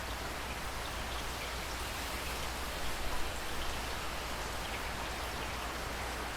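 Steady rain falling, with individual drops pattering on a surface, a little louder for a moment about three seconds in.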